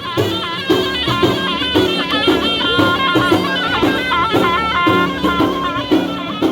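Ghaita, the Maghrebi double-reed shawm, playing a high melody with quick turns over a steady beat on the bendir frame drum, about two strokes a second.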